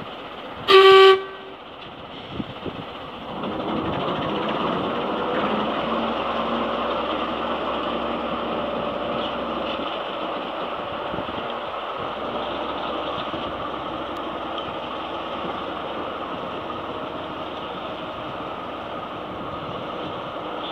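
Ruston diesel shunting locomotive gives one short, loud horn toot. About three seconds in its diesel engine opens up and runs steadily under load as the locomotive pulls away.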